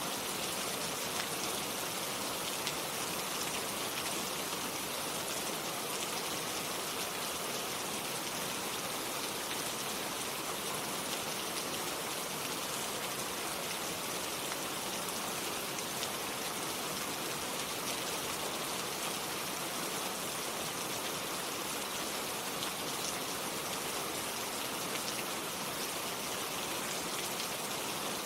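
Steady rain falling, a constant hiss of many drops with fine pattering, unchanging throughout.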